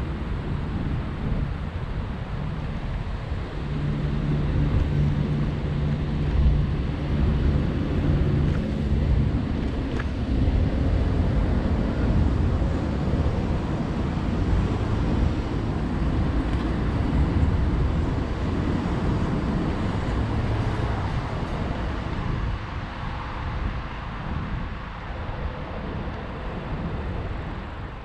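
Large diesel coach bus engines running, a continuous low rumble with a steady low drone between about four and nine seconds in, and wind buffeting the microphone.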